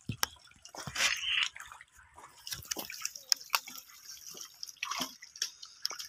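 Irregular splashing and squelching in shallow muddy water as people wade and grope for fish by hand, with a bigger splash about a second in.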